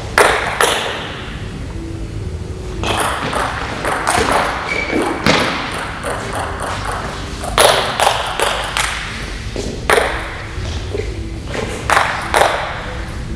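Table tennis rally: the celluloid ball clicking sharply off the paddles and the tabletop in irregular strings of hits, with quick clusters of knocks as the rallies speed up.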